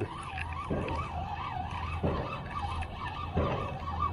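Spinning reel being cranked to retrieve line, its gears whirring with a pitch that wobbles up and down with the turning handle. Three soft thumps come about a second and a half apart.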